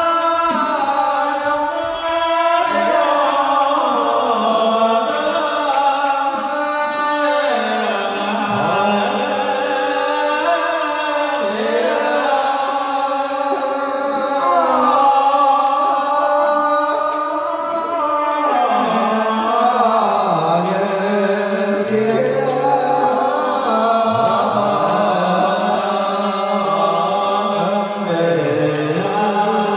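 Huế Buddhist ritual music: a slow, gliding chanted hymn (tán) sung over a traditional ceremonial instrumental ensemble.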